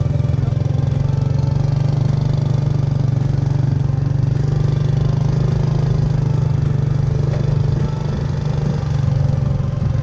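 Motorcycle engine running steadily while riding, with a slight dip in level near the end.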